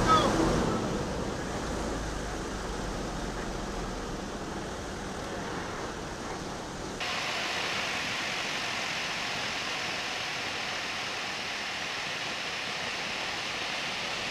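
Steady rushing wind and slipstream noise over the camera microphone at the open door of a small jump plane in flight. About halfway through the hiss abruptly turns brighter.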